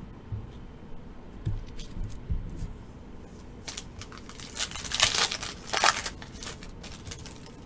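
A foil trading-card pack torn open, its wrapper crinkling as the cards are pulled out. The crinkling is loudest about five to six seconds in, after a few soft handling bumps at the start.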